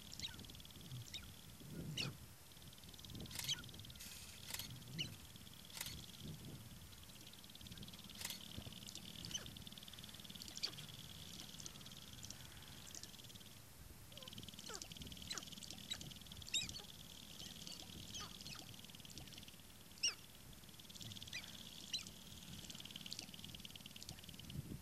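Sharp-tailed grouse calling: scattered short clucking and cackling notes, some with low notes under them, over a faint steady buzz.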